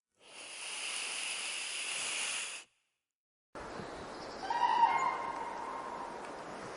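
A snake hissing steadily for about two and a half seconds, then cutting off. After a short silence a faint outdoor background comes in, and a crane gives one pitched call lasting about a second.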